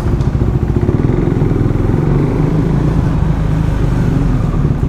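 KTM Duke motorcycle engine running steadily while riding, with wind rushing over the helmet microphone through the open visor.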